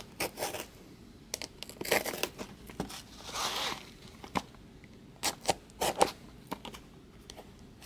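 Hands handling cardboard trading-card hobby boxes: scattered taps and rustles, with a longer tearing sound about three and a half seconds in.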